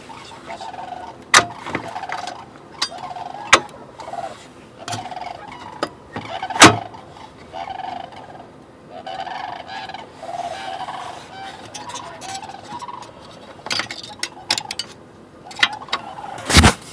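Waterfowl calling in short, repeated nasal calls throughout, with sharp clicks and knocks from a stuck window screen being handled, the loudest near the end.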